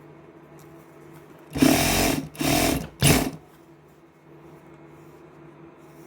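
Electric sewing machine stitching a zipper into a jacket in three short runs, the first the longest, each starting and stopping abruptly, over a faint steady hum.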